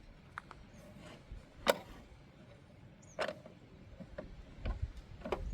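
A few scattered sharp clicks and taps of a license plate and its bolts being handled and fitted against a metal mounting plate on a Jeep, two of them louder. A low wind rumble on the microphone picks up near the end.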